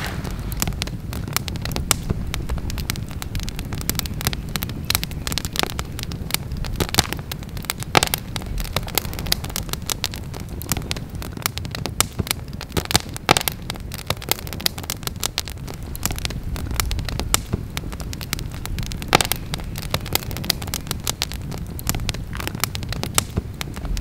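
Campfire crackling, with irregular sharp pops and snaps over a steady low rumble.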